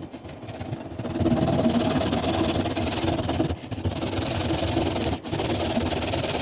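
Small electric power tool motor running steadily under the trigger, with two brief drops near the middle.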